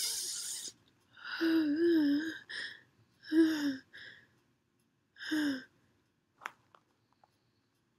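A woman's sneeze build-up: a long noisy breath in at the start, then three drawn-out, wavering "ah" gasps a second or two apart, the first the longest, without the sneeze coming out.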